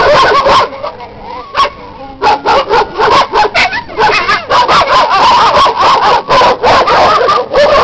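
A group of dogs barking loudly, many barks coming fast and overlapping, with a short lull about a second in before the barking picks up again and runs on almost without a break.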